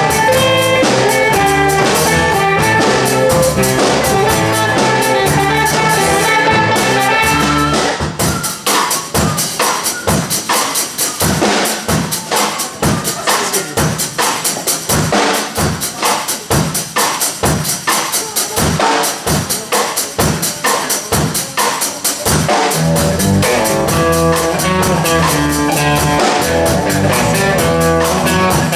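A rock band playing live with electric guitars, bass and drum kit. About eight seconds in, the bass and sustained chords drop away and the drums carry a steady beat at about two hits a second, until the full band comes back in about two-thirds of the way through.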